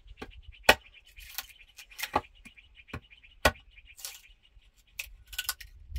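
Hammer striking the top of a wooden stake, driving it into a packed earth floor: a series of sharp, irregularly spaced knocks, about seven or eight in all, the loudest about a second in.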